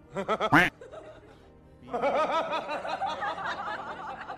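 Laughter, likely an added sound effect: a short, loud burst of giggling at the start, then a longer run of snickering from about two seconds in, over music.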